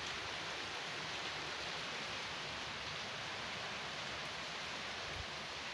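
Rain falling steadily on a concrete rooftop, an even hiss.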